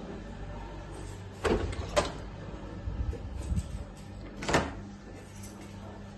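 Interior door being handled and opened: sharp clicks of the lever handle and latch about a second and a half in and again at two seconds, then another sharp knock about four and a half seconds in, over a steady low hum.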